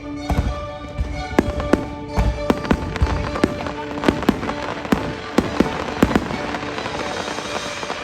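Fireworks bursting in a quick series of sharp bangs that thin out after about six seconds, over the show's music.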